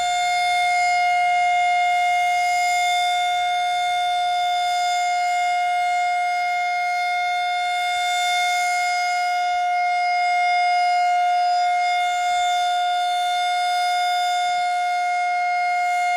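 Civil defence warning siren sounding one long steady tone that holds a single pitch without rising or falling. It is the commemorative siren marking the moment of the proclamation of Indonesian independence.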